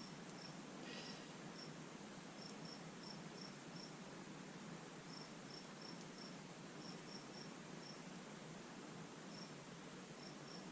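Faint cricket chirping: short high chirps, singly and in quick little runs, over a quiet background hiss.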